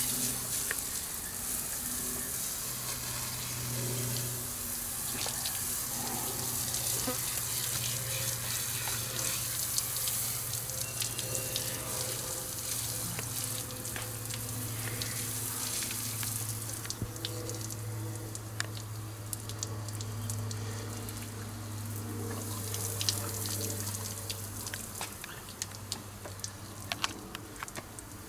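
Water running from a hose and splashing steadily, as an animal is being washed, with a low steady hum underneath and a few faint clicks.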